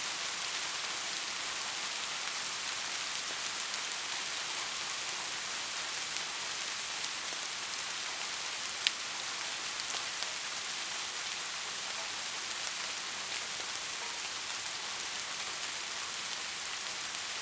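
Steady sleep white noise, a hiss heavy in the treble, with faint scattered ticks and one sharp click about nine seconds in.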